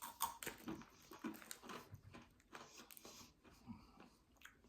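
Faint, irregular crunching of a person chewing crunchy Cheetos.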